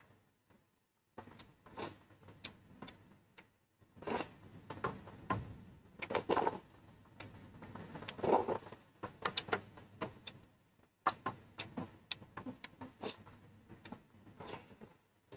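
Close-up eating sounds of a person eating bún riêu noodle soup: many short wet clicks of chewing and mouth noises, with a few louder slurp-like bursts.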